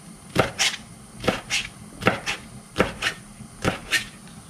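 Chef's knife slicing a green chili pepper on a plastic cutting board: about ten sharp knocks of the blade hitting the board, coming loosely in pairs.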